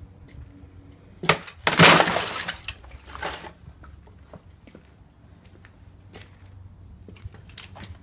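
Thin sheet ice cracking and shattering: a sharp crack about a second in, then a loud crash of breaking ice with a glassy tinkle and a smaller break just after. Scattered small clicks of ice pieces follow.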